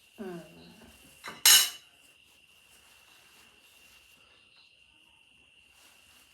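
Cutlery clinking against a plate while food is portioned out: a small click, then one sharp, loud clatter about a second and a half in. A faint, steady high-pitched tone runs underneath.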